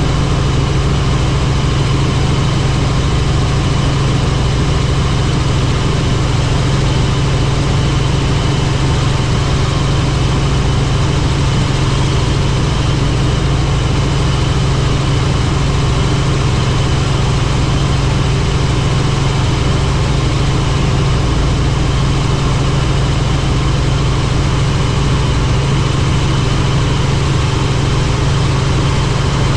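Helicopter in flight: the steady, unchanging drone of its rotor and engine, with a strong low hum and a faint constant whine above it.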